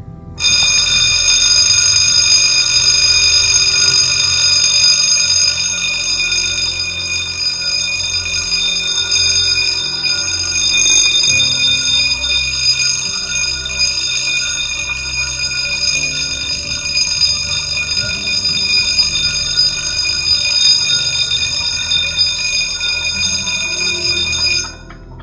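Level-crossing warning bell on a Belgian railway crossing, ringing continuously as the crossing closes: a loud, steady high-pitched electronic ringing that starts suddenly about half a second in and stops abruptly near the end, once the barriers are down.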